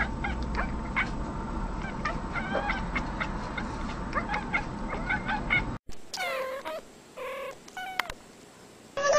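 Cat meowing, three short meows in the last few seconds. Before them, several seconds of short chirps and clicks over steady background noise, which cut off suddenly.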